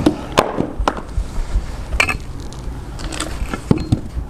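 Axe striking wood on a chopping stump, with the board knocking and clattering: several sharp wooden knocks, the loudest about two seconds in and two quick ones near the end.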